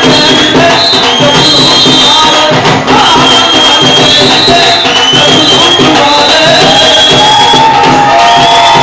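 Loud bhangra music playing without a break.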